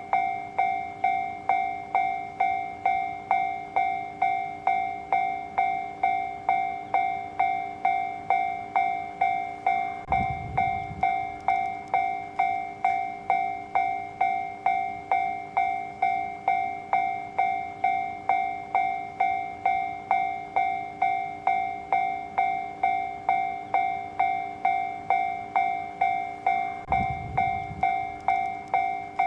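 Japanese railway level-crossing warning alarm ringing its steady, evenly repeating "kan-kan" bell tone, signalling that a train is approaching and the crossing is closing. Twice there is a brief low rumble under it.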